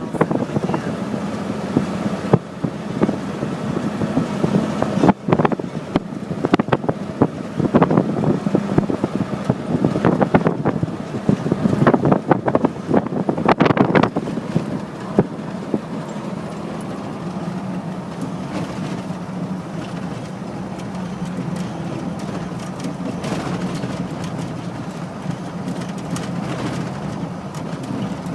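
Engine and road noise inside a moving car: a steady low drone with frequent knocks and jolts over roughly the first half, smoothing out after about fifteen seconds.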